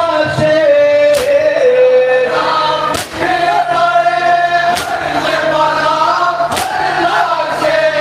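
Men's voices chanting a nauha, a Shia mourning lament, together, with loud unison chest-beating slaps of matam falling about every two seconds.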